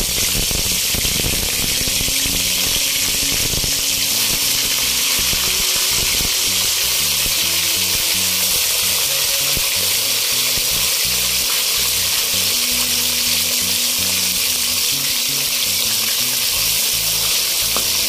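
Large catla fish heads frying in hot oil in a kadai, a steady, even sizzle.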